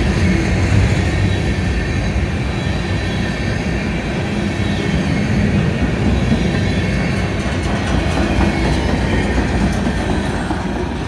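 Covered hopper cars of a Union Pacific freight train rolling past at speed: a steady, loud rumble and rattle of steel wheels on the rails.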